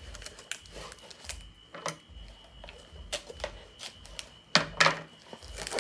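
Hands handling and opening the packaging of an AirPods box: a run of sharp clicks, taps and crackles, the loudest a little before the end. Faint regular low thumps of loud music sit underneath.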